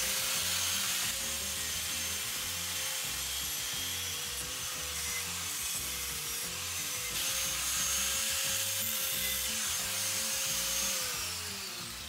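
Angle grinder grinding a steel tab held in a vise: a steady whine with the hiss of the disc on steel, its pitch sagging slightly a couple of times. The motor winds down near the end.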